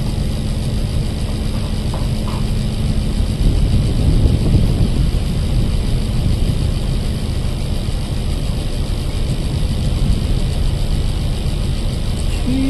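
Steady low engine rumble mixed with a haze of wind-like noise, with a steady hum over it for the first few seconds and another short hum near the end.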